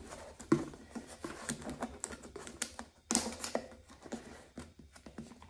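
Plastic tub lid being worked loose by hand, giving a run of light, irregular clicks and taps, with louder snaps about half a second and three seconds in.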